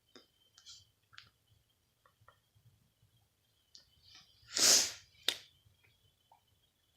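A single sneeze: one loud, noisy burst of breath lasting about half a second, a little past the middle, followed by a sharp click. Faint clicks and handling noises come before and after it.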